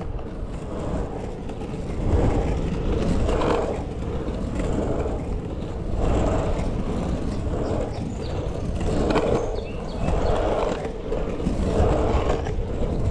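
Surfskate wheels rolling and rumbling on rough asphalt, the noise swelling and easing every second or two as the board is pumped and carved.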